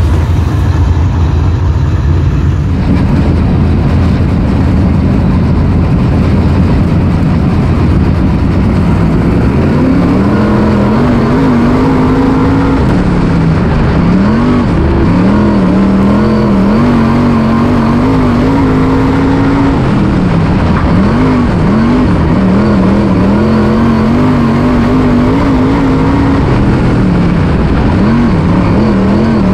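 Dirt late model race cars' V8 engines running as a pack. From about ten seconds in, one engine is revved hard: its pitch climbs and then drops sharply roughly every few seconds, as it lifts off for the corners and gets back on the throttle.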